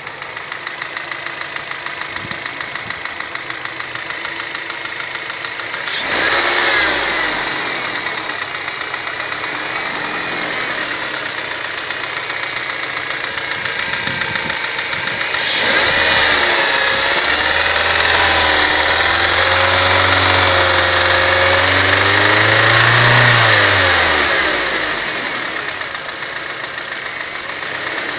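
Warm car engine running with a rapid, regular ticking clatter from the engine. It is revved briefly about six seconds in and held at higher revs for several seconds in the second half, the ticking carrying on throughout. The clatter appears only when the engine is warm and is absent on a cold start; its cause is unknown to the owner.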